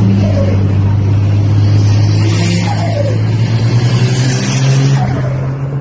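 Turbocharged car engine running at a steady, low, even note, with a hiss sitting over it through the middle.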